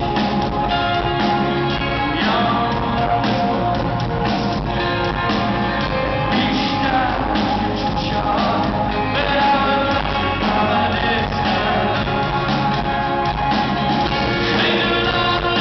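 A rock band playing live: lead vocals over electric guitar and keyboards, with a steady beat.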